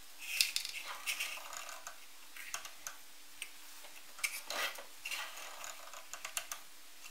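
Light handling sounds at a drill press: scattered clicks, taps and short scrapes as a plywood plate fitted with steel shaft pins is moved on the drill press table and epoxy is dabbed into its holes with a wooden stick.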